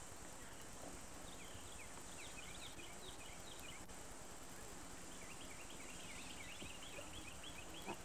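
A bird singing two runs of quick, high chirps, the second faster and longer, over a steady background hiss. A brief knock comes near the end.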